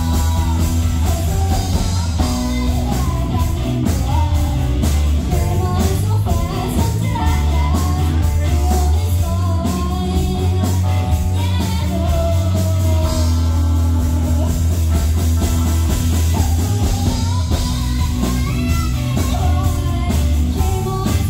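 Live rock band playing: electric guitars, bass guitar and a drum kit, with a woman singing lead.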